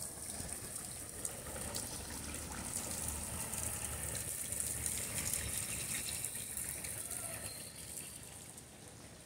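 Running water with a steady high hiss, growing louder to a peak about halfway through and then fading.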